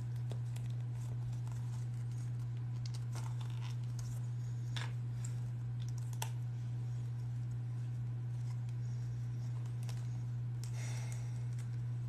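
Leather and small metal rivet parts being handled, with scattered faint clicks and short scratchy rustles, a longer rustle near the end, as rivet hardware is worked through folded leather. A steady low hum runs under it throughout.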